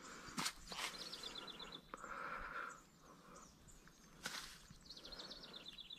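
A songbird singing a short, rapid trill twice, about a second in and again near the end, faint over the outdoor background. A few sharp clicks or knocks also sound, about half a second in, just before the first trill and again past the four-second mark.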